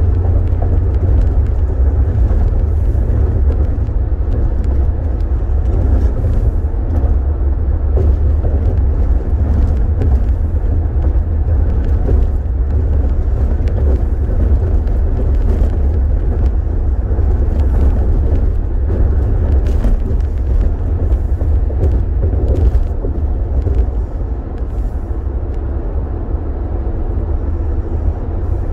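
A car's running and road noise, heard from inside the cabin: a steady, deep rumble.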